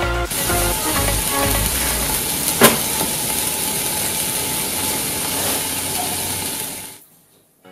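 Red-hot knife blade sizzling with a steady hiss as it melts into a chocolate egg's shell, with one sharp click about two and a half seconds in. The hiss stops abruptly about seven seconds in.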